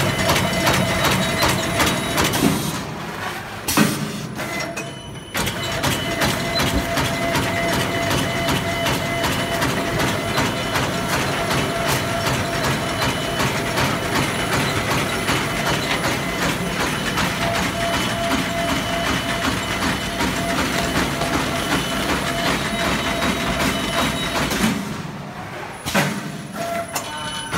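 Disposable polyethylene glove making machine running: a dense, fast mechanical clatter from its press and conveyor, with a steady whine over it. The clatter drops away briefly twice, near the start and near the end.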